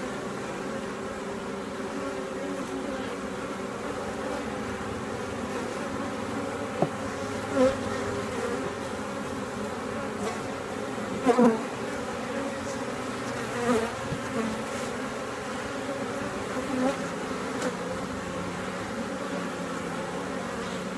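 Honey bee colony humming steadily in an open hive box during a frame inspection. A few single bees buzz louder now and then, the loudest about halfway through.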